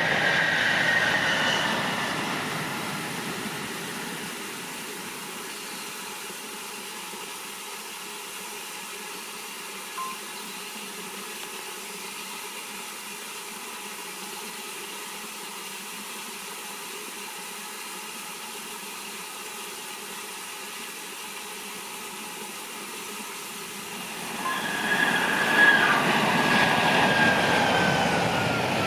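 A Shinkansen 500 series train passing at speed, its rushing rail noise dying away over the first few seconds. After a long steady lull, the Doctor Yellow inspection train approaches and its noise rises sharply about 25 seconds in, with a high tone gliding down in pitch.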